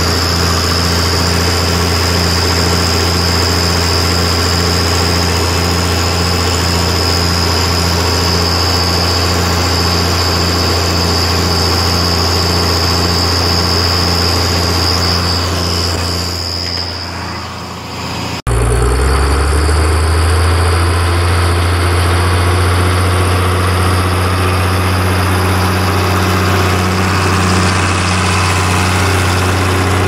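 International Harvester 956 XL tractor's six-cylinder diesel engine running steadily with a thin high whine over it, fading down shortly before a sudden cut about 18 seconds in. After the cut the engine is heard again, its pitch climbing for a second or two and then settling into a steady run.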